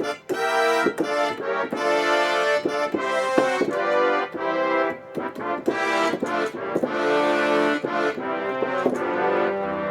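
Yamaha Montage M synthesizer playing its 'Orchestra Brass Oct' preset: sampled orchestral brass playing a run of sustained chords, each held about a second or less, with short breaks between them.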